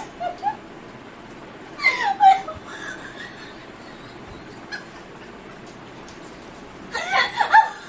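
A woman squealing and laughing helplessly as she is tickled on the belly, in short bursts: a few at the start, high shrieks sliding down in pitch about two seconds in, and a quick run of laughs near the end.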